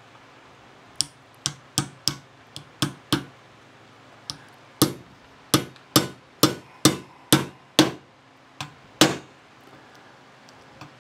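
Small hammer tapping a cap onto the end of a dolly's wheel axle: a series of sharp taps, about two a second, lighter at first and harder from about five seconds in, stopping shortly before the end.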